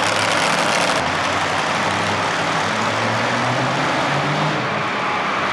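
Modified pulling tractor's engine running loud and steady at high revs, with a slight rise in pitch a few seconds in.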